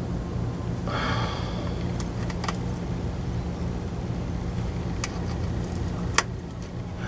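Parts and tools being handled on a Jeep 44RE transmission's valve body: a short scrape about a second in, then a few sharp metal clicks, the loudest near the end, over a steady low hum.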